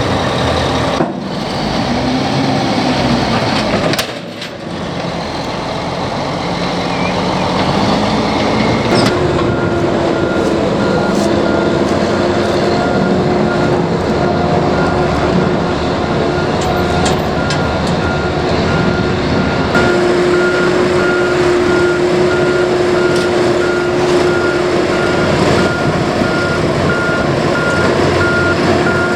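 Heavy diesel construction machinery running under load, with a steady engine drone. About a third of the way in, a backup alarm starts beeping at an even rate and keeps going.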